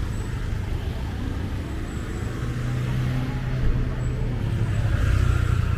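Street traffic: motor vehicle engines running close by, a steady low rumble whose hum grows stronger about halfway through.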